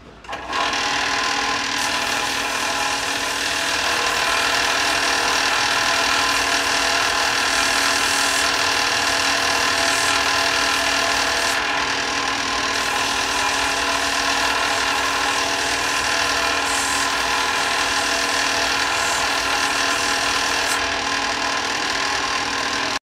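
Electric power tool running steadily with a constant motor whine while polishing a Damascus steel piece to 800 grit; it comes up to speed about half a second in and cuts off abruptly near the end.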